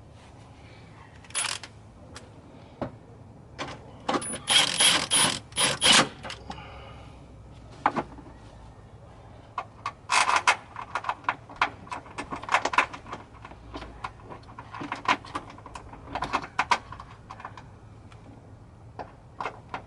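Metal hand tools clicking and clanking against car parts in irregular bursts, with a dense run of rapid clicks about four to six seconds in.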